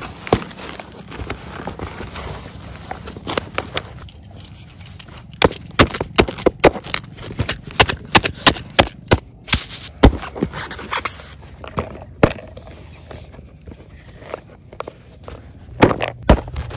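Unpacking a cardboard carton by hand: plastic wrap crinkling, cardboard scraping and foam packing sheets rustling. A dense run of sharp crackles and clicks comes in the middle, and two louder clacks near the end.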